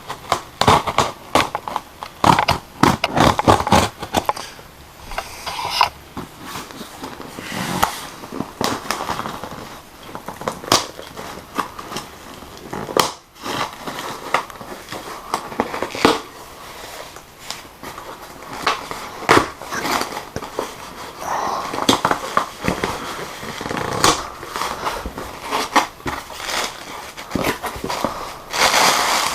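Cardboard shipping package being opened by hand: irregular crackling, crinkling and knocking of cardboard and packing material.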